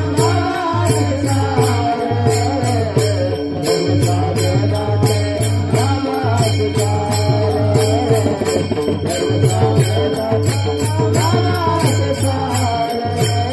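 Abhang devotional song: a melody that rises and falls over a steady drum beat, with small hand cymbals striking in time.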